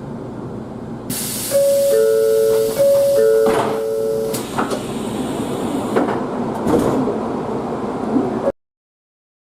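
Train door chime: a two-note descending chime sounded twice, over a loud hiss of compressed air from the door engine. A thud comes midway through the chime, as the doors move, and a few clicks follow.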